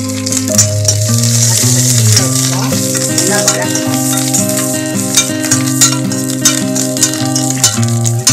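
Garlic cloves and curry leaves sizzling in hot ghee in an iron kadai, stirred with a spoon that clicks against the pan now and then. Background music with long held notes plays over it.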